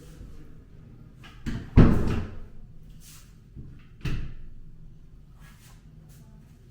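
A few sharp knocks and thuds, the loudest about two seconds in and another about four seconds in, like a door or cupboard being shut.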